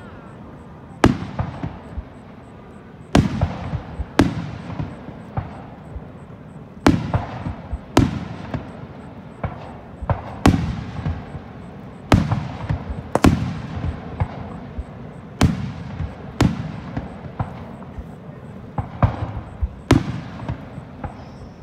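Aerial firework shells bursting in a display: a string of sharp booms, roughly one every second or two, each trailing off in a rolling echo.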